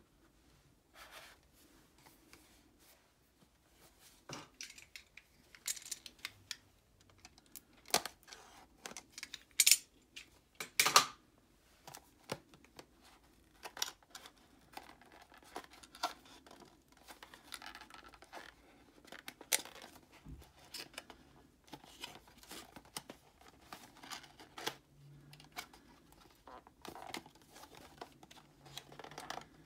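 A small cardboard box being handled and opened by hand: irregular rustling, scraping and tearing of card and seals, with many small clicks and two louder sharp noises about ten and eleven seconds in.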